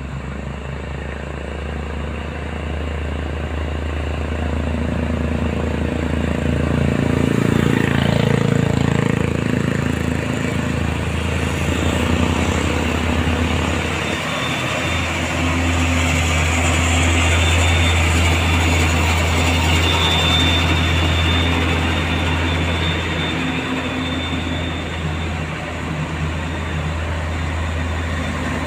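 Heavy diesel truck engines pulling up a steep grade: a deep, steady engine drone that swells twice as a loaded truck climbs close by.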